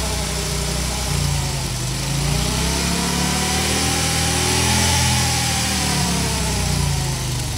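Harley-Davidson motorcycle's V-twin engine revving: the pitch climbs steadily for about three seconds, holds briefly, then falls back over the last couple of seconds.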